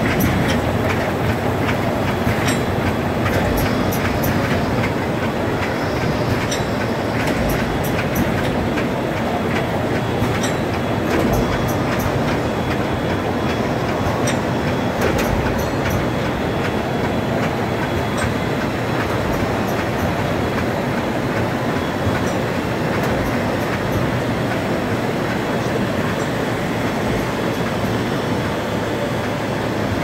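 Automatic roll-bag making machine running, a Gur-ish DRM-ROLL 900 line sealing and perforating film on its drums: a steady mechanical din with scattered sharp clicks, which thin out in the second half.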